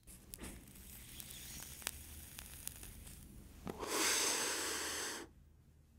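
Crackling static with scattered sharp clicks, swelling about four seconds in into a louder rush of hiss that cuts off suddenly.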